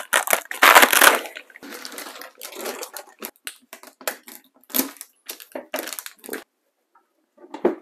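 Unboxing packaging being handled: irregular crinkling and rustling of plastic wrapping and cardboard, loudest about a second in, thinning to sparse crackles and stopping about six and a half seconds in, with one short sound near the end.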